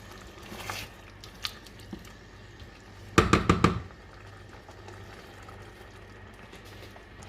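Curry sauce of lentils, onion and crushed tomatoes simmering in a pot, with faint bubbling and the odd light tick. About three seconds in comes a quick run of five or six sharp knocks.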